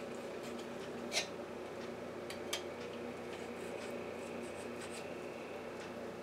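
Knife slicing raw chicken breast into strips, with quiet cutting and rubbing sounds and two sharp taps of the blade against the board, about a second in and again about two and a half seconds in, over a faint steady hum.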